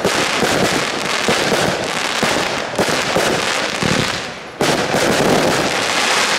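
Aerial fireworks bursting: a dense, continuous crackle of many bangs and popping stars, easing briefly about four seconds in, then coming back suddenly and loud as a large crackling shell breaks.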